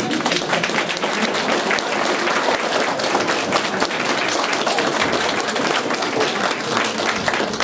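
Applause from many people, children among them: dense, steady clapping.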